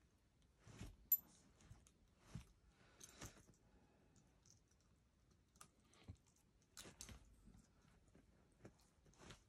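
Soft, scattered scuffs and rustles of a Jack Russell puppy nosing and pawing at bedding while burying a bone, about nine in all. About a second in comes one sharp metallic clink from its collar fittings, the loudest sound.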